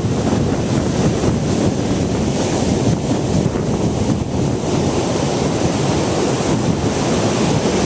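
Rough ocean surf breaking and washing on the beach, a steady, heavy rumble, with strong wind buffeting the microphone.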